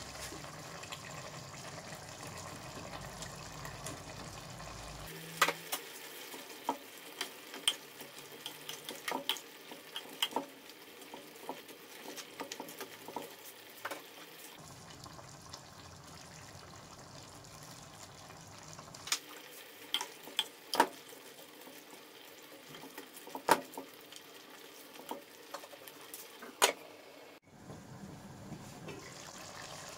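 Food sizzling in a pan, stirred with a metal utensil that clinks and scrapes against the pan in sharp, irregular strikes.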